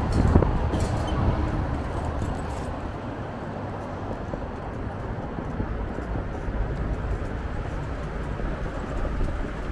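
Street traffic noise with a low rumble of wind on the microphone, steady after a louder first second or two.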